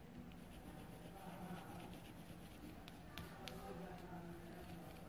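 Faint scratching of a colored pencil shading on paper, with a few light ticks about three seconds in, over a low steady hum.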